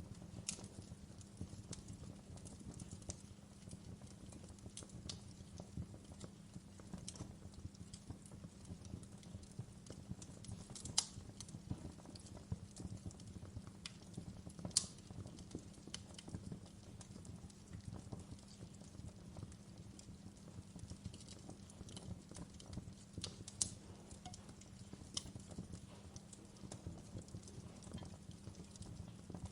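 Wood fire crackling in a fireplace: a steady low rustle with irregular small snaps and a few sharper pops scattered through.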